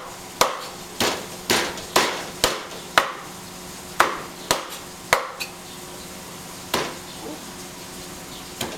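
Chinese cleaver chopping chicken on a wooden chopping block: about a dozen sharp blows, roughly two a second at first, then more spaced out, with one last blow near the end after a pause.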